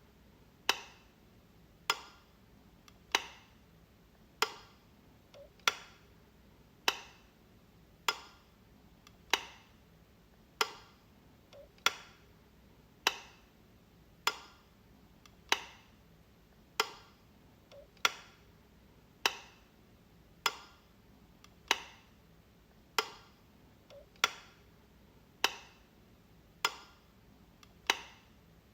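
Light switch being flicked, a steady series of sharp clicks about one every 1.2 seconds.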